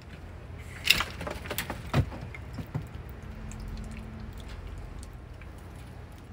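A short run of sharp clicks and knocks, the loudest about a second in and another at two seconds, with a few lighter taps after, over a steady faint background.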